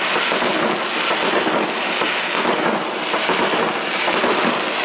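Aerial fireworks going off: a loud, dense, unbroken crackle with a few sharper bangs mixed in.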